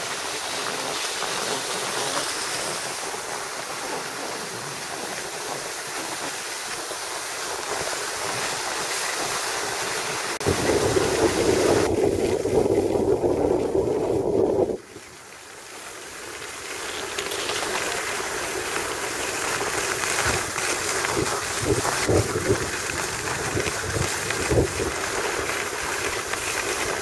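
Steady rushing noise of wind on the microphone. About ten seconds in, a louder, deeper rush starts, then cuts off suddenly some four seconds later.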